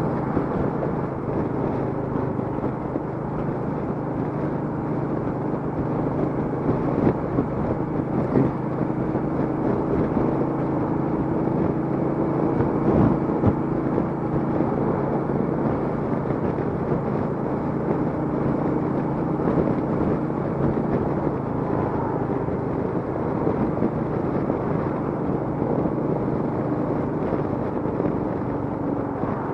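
Royal Enfield Meteor 350's single-cylinder engine running at a steady cruise, with wind and road noise.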